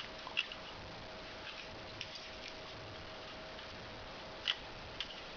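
A few light, scattered plastic clicks and taps from handling a Zoids Ultrasaurus toy as a small ship is fitted back into its compartment, over a faint steady hum.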